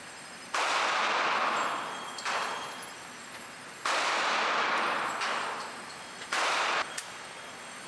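Three shots from a .357 Magnum revolver, roughly three seconds apart, each starting suddenly and trailing off over about a second. Two fainter bangs fall in between.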